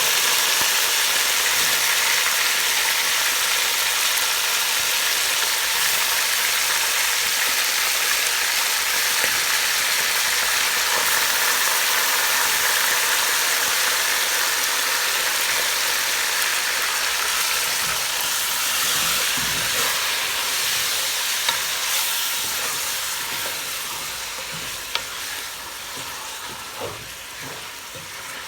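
Chicken pieces sizzling as they fry in hot oil with browned onions, garlic and ginger, the first searing in a biryani base. The sizzle dies down gradually over the last few seconds, with a few sharp knocks near the end.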